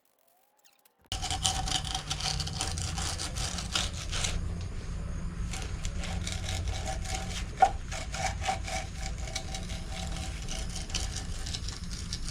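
Rapid, rough scraping and rubbing strokes on a hard surface, starting abruptly about a second in, over a steady low rumble.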